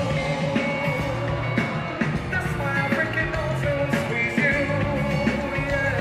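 Live band playing on stage, with a lead singer over steady bass and regular drum beats.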